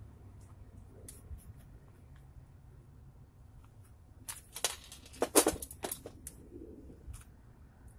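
A few faint clicks, then a burst of sharp clinks and clatters about four to six seconds in: small metal tools and castings being handled and set down on a workbench with gloved hands.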